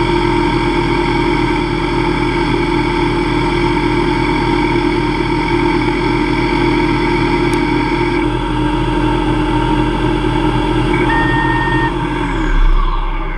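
Hobby CNC lathe turning aluminium at 2500 RPM with a CCGT chipbreaker carbide insert: the spindle and drives run with a steady whine under the cutting noise. Near the end the pitch falls away.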